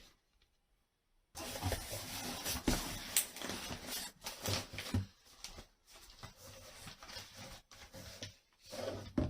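Unboxing a package: packaging rustling and being handled, with scattered clicks and taps, starting about a second in and growing fainter after the first few seconds.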